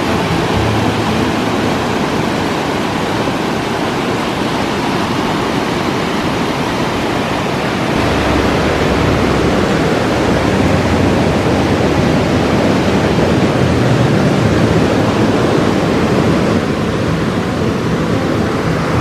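Rushing mountain creek: whitewater pouring over rocks in a steady, loud rush, a little softer near the end.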